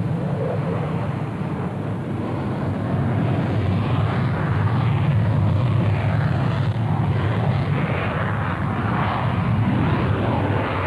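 Dassault Rafale prototype's twin General Electric F404 jet engines at takeoff power, a steady roar that grows louder about three seconds in as the jet accelerates down the runway and lifts off.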